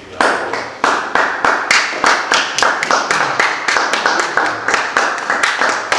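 Hand claps in a steady rhythm, about three claps a second, starting suddenly and keeping an even beat.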